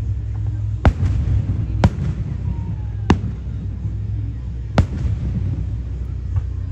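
Aerial firework shells bursting overhead: four sharp bangs, spaced one to two seconds apart, over a steady low rumble.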